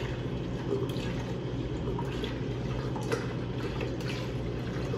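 Milk pouring in a steady stream from a carton into a blender jar.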